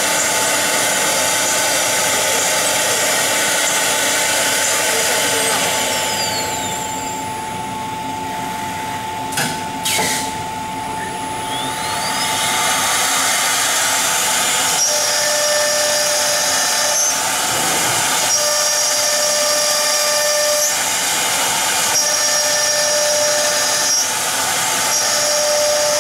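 Four-spindle CNC router's spindles running as it machines particle board, a steady loud whir. About six seconds in the high spindle whine falls away, a couple of sharp clicks follow near ten seconds, and the whine rises again; from about fifteen seconds a whine comes and goes in stretches of about two seconds.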